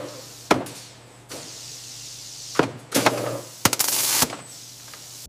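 Automated food-tray machine working: sharp mechanical clicks and clunks, one about half a second in and a cluster of four or so between two and a half and four and a half seconds, with hissing between them.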